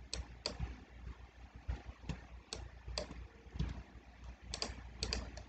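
Scattered clicks of a computer keyboard and mouse, a few sharp keystrokes at a time, as numbers are typed into a dialog box's width and height fields.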